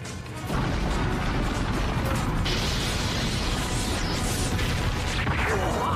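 Anime battle sound effects: a dense, steady rumble and crackle of energy and breaking debris that sets in about half a second in, with a higher hiss joining it about halfway through.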